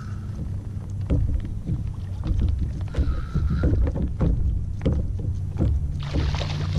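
Sounds of a small fishing boat on the water: a steady low hum with irregular knocks and slaps of water against the hull. A brief rushing hiss comes near the end.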